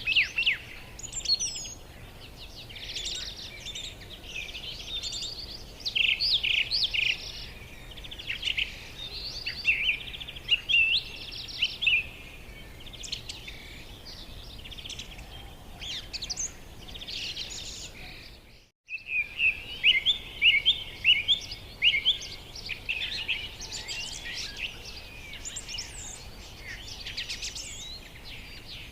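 Pet parrots chirping and calling continually in rapid short high notes, broken by a brief gap about two-thirds of the way through.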